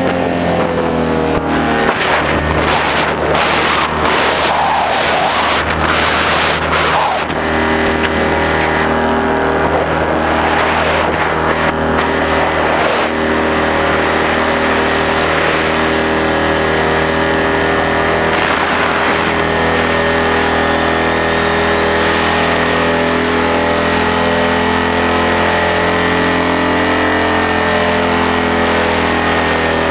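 An engine running steadily, with a run of knocks or clicks in the first several seconds.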